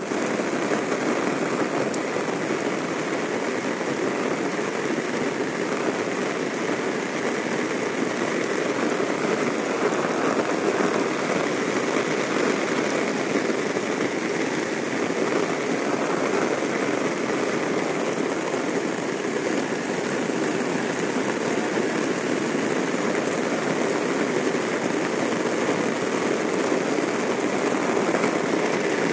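Heavy rain falling steadily on a wet paved road and roadside vegetation, an even, unbroken hiss.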